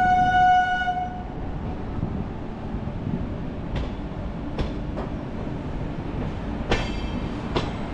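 Train horn sounding one long steady note that stops about a second in. Then a passenger train running with a low rumble and a few irregular clacks of wheels over rail joints.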